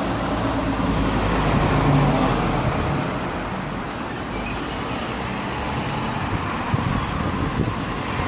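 Road traffic on a street: a motor vehicle's engine running close by in the first couple of seconds, easing into a steady traffic hum, with a few light knocks near the end.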